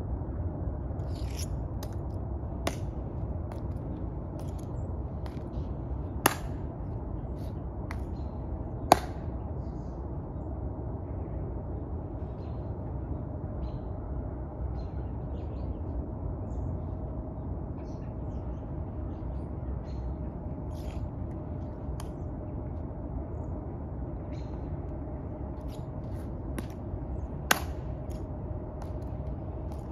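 A few sharp clicks from the Tomb Guards' rifle handling and heel taps, the loudest about six and nine seconds in and again near the end, over a steady low rumble of outdoor background noise.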